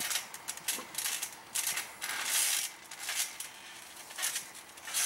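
Trampoline springs creaking and rattling in irregular short bursts as wrestlers shift their weight and get up on the mat.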